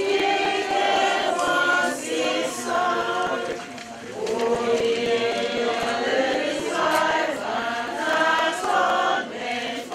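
Church choir singing the closing hymn after the Mass's dismissal, in long held notes with short breaks between phrases.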